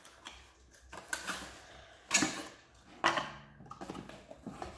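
A cardboard slime-kit box being tipped and shaken, its contents rattling and knocking inside, with two sharper knocks about two and three seconds in.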